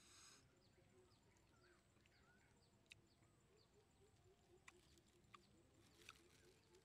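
Near silence: faint open-air ambience with a brief rustle at the start and a few soft, sparse clicks from fruit being handled in a small plastic bag.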